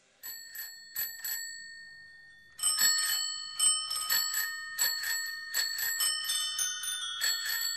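Bicycle bells ringing. First come four single rings, then from about two and a half seconds in many rings at different pitches overlap in a quick rhythm.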